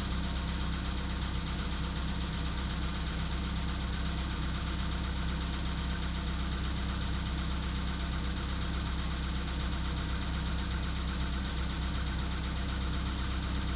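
Volkswagen Polo Sedan's 1.6-litre CFNA four-cylinder idling steadily, still cold after a start below freezing, with a knocking from the engine, the cold-start knock typical of this engine.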